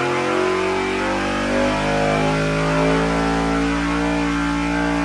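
A carburetted 5.3-litre GM V8 at full throttle on an engine dyno, running on E85R fuel, its pitch climbing steadily through a power sweep.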